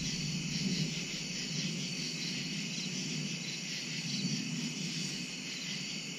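A steady chorus of crickets and other insects chirping, with a faint low rumble underneath.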